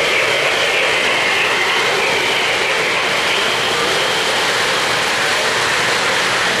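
O-gauge model freight train running past on three-rail track: a steady rattling rumble of wheels and motor on the rails.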